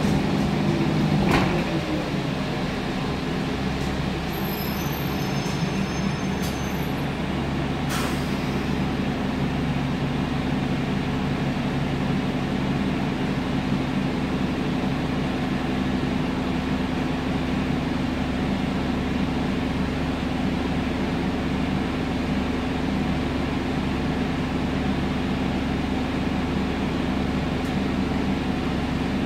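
Alexander Dennis Enviro 400 double-decker bus's diesel engine heard from inside the passenger saloon: a falling whine over the first two seconds as it slows, a sharp click about a second in and another about eight seconds in, then a steady idle drone.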